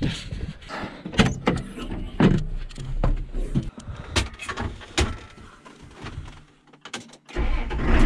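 A string of irregular clicks, knocks and thuds, as of climbing into a tractor cab and handling its door and controls. About seven seconds in, a low steady rumble comes in suddenly.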